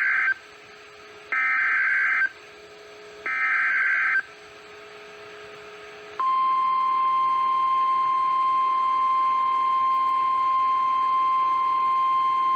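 NOAA Weather Radio SAME digital header: three data bursts, each a harsh screech of about a second, sent about two seconds apart, which encode a new warning alert. About six seconds in, the steady 1050 Hz weather-radio warning alarm tone starts and holds. This tone is what sets off receivers in alert mode.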